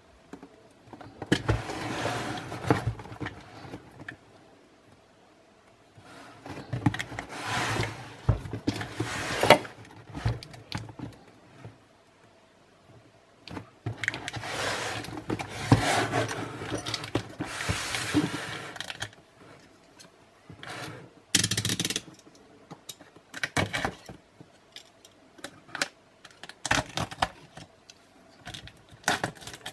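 Packaging and parts of a boxed bench grinder being handled: irregular stretches of rustling and scraping with scattered clicks and knocks.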